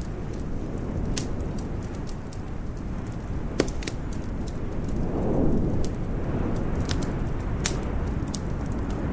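Wood fire crackling, with irregular sharp pops over a steady low rumble. The rumble swells briefly about five seconds in.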